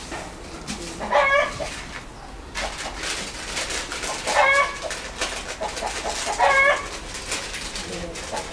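A chicken calling three times, a few seconds apart, each call short. Between the calls come faint crackles of hands pressing soil around a seedling in a plastic bucket.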